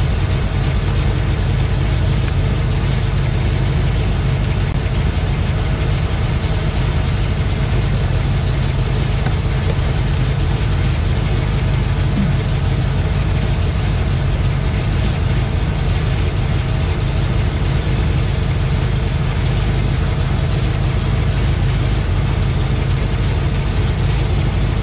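Chevy SS's 6.2-litre V8 idling steadily, heard from beneath the car near the exhaust, while the transmission warms up.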